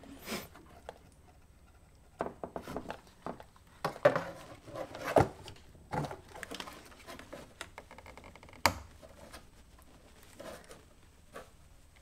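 Scattered clicks, taps and light scrapes of a plastic car side-mirror assembly being handled while a tape-wrapped wire coat hanger is pushed through its wiring grommet, with one sharper click about three quarters of the way through.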